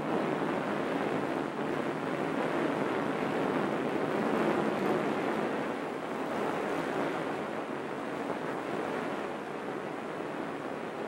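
Steady rushing roar of the Saturn IB first stage's eight H-1 rocket engines at liftoff, a little louder around the middle.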